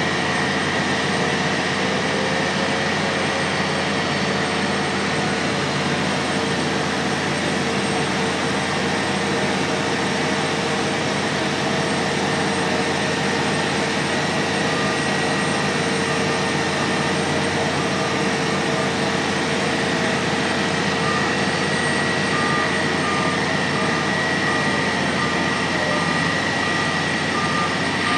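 Manitowoc crawler crane's diesel engine running steadily under load while it holds and hoists a very heavy vessel, with a steady whine over the engine noise. About three-quarters of the way in, a repeating beep starts, about once a second.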